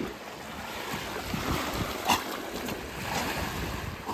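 Small waves breaking and lapping on a sandy shore, with wind buffeting the microphone. A brief sharp sound stands out about two seconds in.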